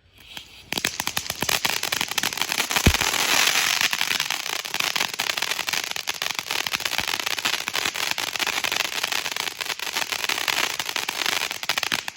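Attack Mode hybrid firework fountain spraying, a dense crackling hiss thick with rapid small pops, with one low thump about three seconds in. It cuts off abruptly at the end.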